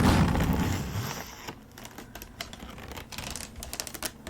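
Folding hand fan: a whoosh of moving air for about a second and a half, then a run of quick, light, irregular clicks as its ribs are handled.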